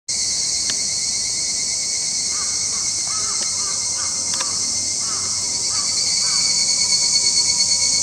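A steady, high-pitched drone of summer insects. A string of short, soft chirps runs from about two to six and a half seconds in, with a few faint clicks.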